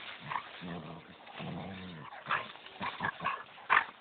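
Two dogs play-fighting and growling. Low, drawn-out growls come in the first half, then a string of short, sharp snaps and yelps, the loudest just before the end.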